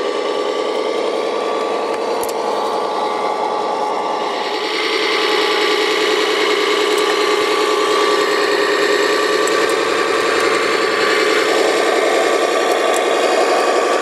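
Radio-controlled tracked dumper running under load, towing a second tracked tipper: a steady mechanical whine from its drive motors and gears, which grows louder about five seconds in.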